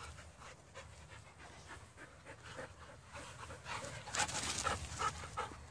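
Dogs panting close by, in quick repeated breaths that get louder in the second half as the dogs come running up.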